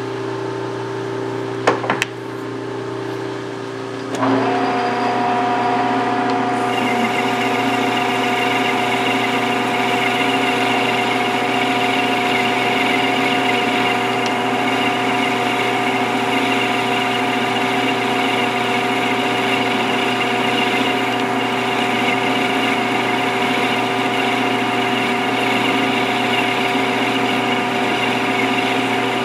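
Metal lathe: a couple of sharp clicks, then about four seconds in the spindle starts and runs with a steady hum and whine. A parting tool cutting into the spinning workpiece adds a hiss from a couple of seconds later.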